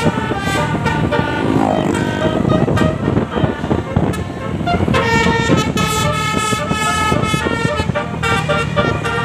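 Bus telolet horn, a Basuri multi-tone horn, playing a tune in stepped notes, loudest from about five seconds in, over steady road noise.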